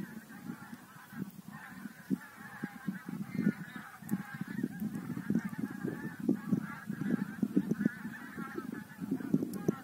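A large flock of wild geese flying over, many birds honking at once in a continuous clamour, over an irregular low rumble.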